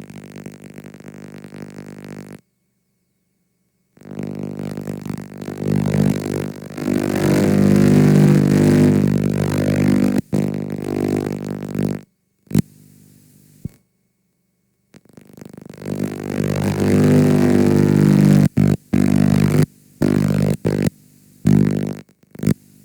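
Damaged VHS tape playback sound effect: a low, distorted tone with many overtones that cuts out abruptly into silence several times, with sharp clicks at the breaks.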